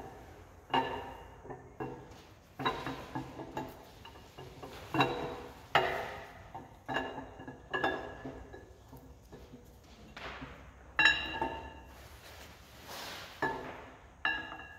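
Repeated metallic clinks and knocks, about a dozen, each ringing briefly, as the camshaft is worked out of a 5.9 Magnum V8 block on an engine stand.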